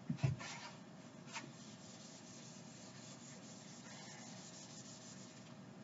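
Whiteboard eraser rubbing across a whiteboard, faint, after a couple of soft knocks at the start.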